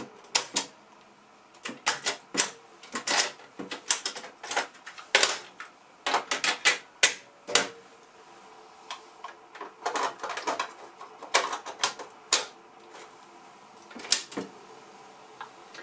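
Mechanical piano-key transport buttons on a 1971 Canon Repeat-Corder L cassette recorder being pressed and released again and again, giving sharp clicks and clunks in irregular clusters.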